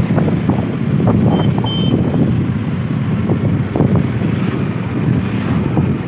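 Wind buffeting the microphone on a moving two-wheeler, over its engine and road noise.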